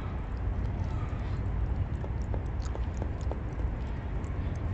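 Tabby cat eating wet cat food from a bowl: a string of small, irregular wet chewing and lapping clicks over a low steady rumble.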